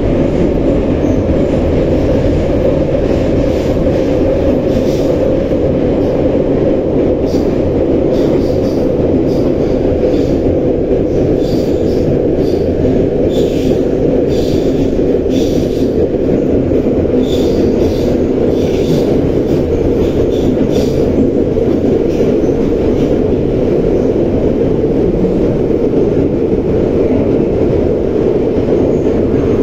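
Inside a 1985-built 81-717/714 metro car running between stations: a loud, steady rumble of wheels on rail and running gear, with a spell of faint clicks and rattles through the middle.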